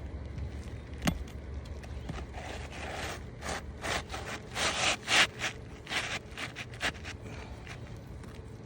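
A new asphalt shingle being slid and worked into place under the shingles above, its gritty surface scraping against them in a run of short strokes. A single sharp click comes about a second in.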